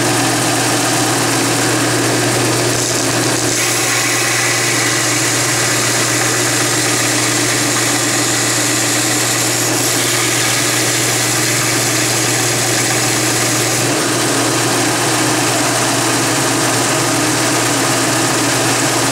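Delta 6-inch belt sander running steadily with a motor hum, while the end of a metal T-nut is ground square against the moving abrasive belt.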